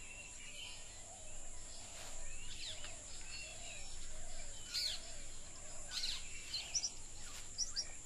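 Rainforest birds chirping: a run of short repeated lower calls through the first half and quick high chirps toward the end, over a steady high-pitched whine.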